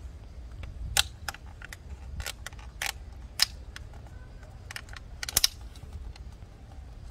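Hard plastic clicking and tapping as the PCV valve (oil separator) diaphragm cap is handled and pressed back onto the plastic valve cover of a BMW 528i engine. The clicks are irregular and sharp, loudest about a second in, about three and a half seconds in, and as a quick double click about five and a half seconds in, over a low steady rumble.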